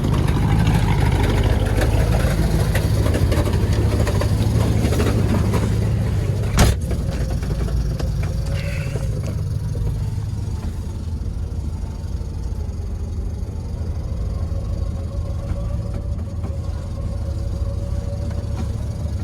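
BMW E36 car engine running steadily. It is a bit louder in the first few seconds, with one sharp click about six and a half seconds in.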